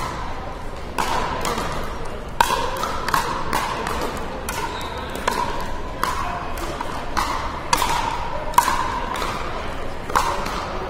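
Pickleball paddles hitting a hard plastic ball: a rally of sharp, irregular pops, each with a short ringing ping, echoing in a large hall. Hits from neighbouring courts are mixed in.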